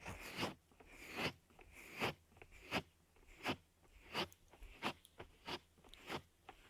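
Close-up ASMR trigger sounds on a binaural dummy-head microphone: soft crackling clicks, about nine, evenly spaced a little under a second apart.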